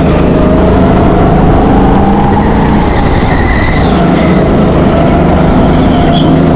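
Go-kart engine running hard, heard onboard, its pitch dipping and rising as the kart slows for and powers out of corners.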